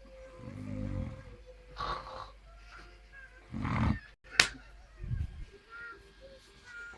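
A sleeping person snoring in several separate snores, with a sharp click about four seconds in.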